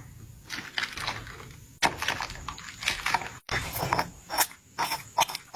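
Toothpaste slime being squished and worked by hand, giving an irregular run of sticky clicks and crackles with short pauses between.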